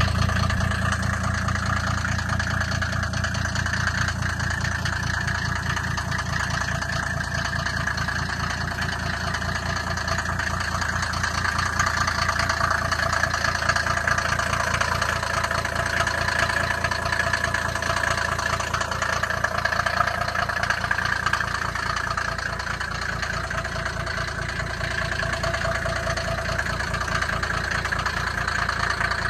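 Mercedes-Benz W460 G-Wagen 300 TD turbodiesel engine idling steadily at an even rhythm.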